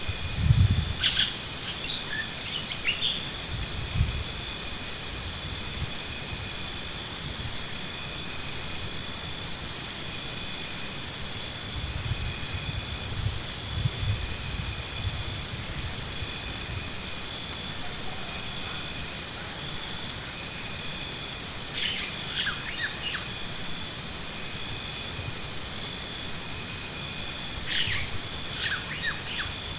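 Insect-like chirping: several high-pitched trills pulsing rapidly at once, swelling and fading in waves. A couple of low thumps come in the first few seconds.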